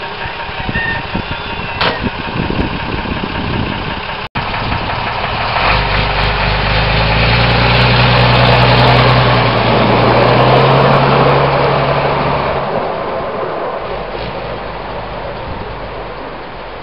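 Diesel engine of a road-rail Unimog running, first near idle with some knocks and clatter, then pulling away along the rails with a steady engine note that swells and then drops off about three-quarters of the way through as the vehicle draws away.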